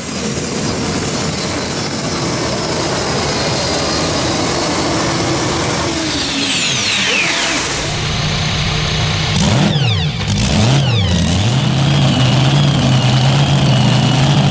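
Modified pulling tractor running at full power with a high whine that falls steeply in pitch as it shuts down. From about 8 s the supercharged V8 of another modified tractor idles, is blipped twice near 10 and 11 s, then settles back to a steady idle.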